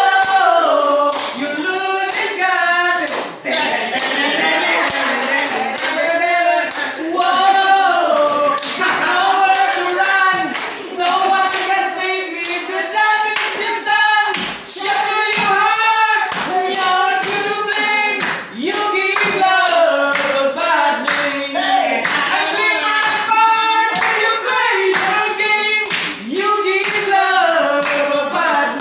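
Men singing into microphones, with the audience clapping along in time.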